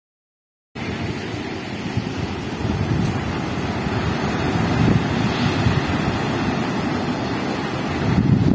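Wind buffeting the microphone over the steady wash of surf breaking on the beach, cutting in abruptly less than a second in after silence.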